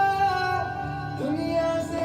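A song playing: singing voices hold long notes over instrumental backing, moving to a new note about a second in.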